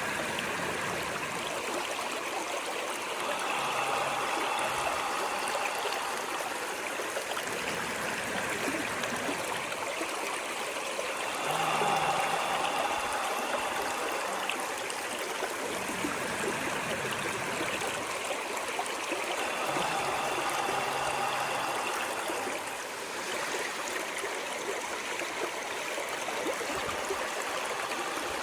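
A water stream running steadily, with a faint tone that swells in three times, about every eight seconds.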